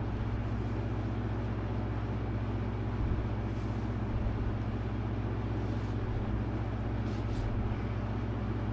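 A steady low hum with a background hiss. Cloth drawstring bags rustle faintly a few times as they are untied.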